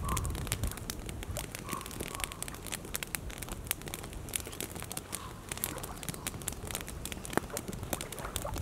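Campfire crackling and popping, a dense run of irregular sharp snaps.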